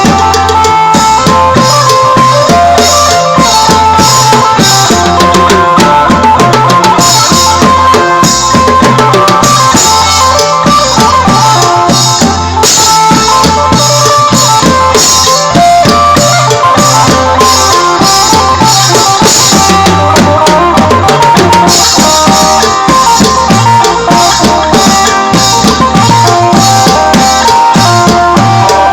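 Live Isan phin prayuk band music: a plucked phin melody over a steady drum-kit beat with bass drum, played loud without a break.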